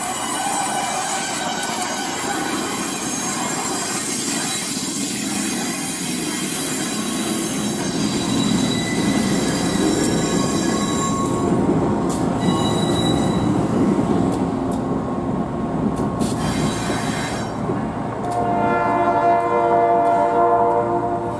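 A diesel-hauled passenger train rolling past close by, its wheels squealing on the rails. Then a diesel locomotive's engine rumbles as it approaches, with a few sharp clicks. Near the end, an EMD GP8 locomotive's air horn sounds a steady chord for about three seconds.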